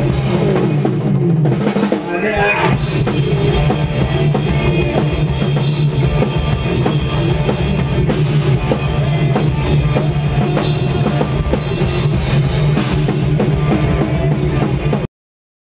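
Hardcore band playing live: loud, dense rock with a pounding drum kit and heavy low end, which cuts off abruptly near the end.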